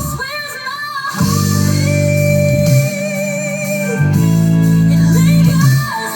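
A band's song plays. A sung vocal line runs over sustained guitar and bass chords that enter about a second in and change every second or so.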